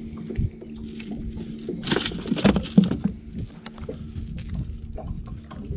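Footsteps, knocks and bumps on a fibreglass boat deck as someone moves about the boat, with a louder stretch of scuffing and knocking about two seconds in.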